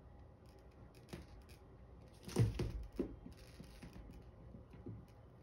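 A small chihuahua puppy's claws clicking and scratching on a tipped-over plastic bin, with one louder thump and rustle about two and a half seconds in as it gets down off the bin. A few single light clicks come before and after.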